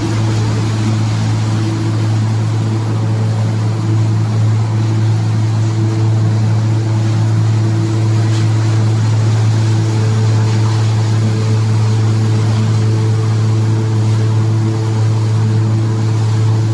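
Wood-waste hammer mill running steadily: a loud, constant low hum with a few higher tones over a continuous rushing noise.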